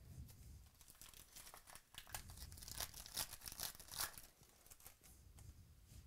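A foil baseball-card pack wrapper being picked up, torn open and crinkled by hand: a run of crackles that is loudest in the middle.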